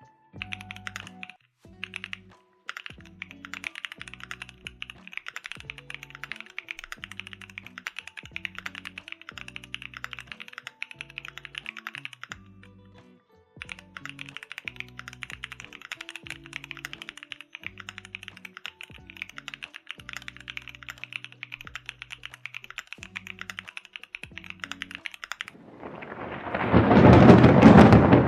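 Fast typing on a Luminkey75 mechanical keyboard fitted with Gateron Luciola linear switches: a dense stream of key clacks with a short pause about halfway, over background music. Near the end the typing stops and a loud rumble like thunder swells up and takes over.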